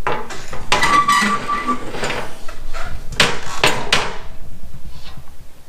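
Steel parts and tools clanking and knocking, with one strike about a second in ringing briefly, and a quick run of sharp knocks around three to four seconds in.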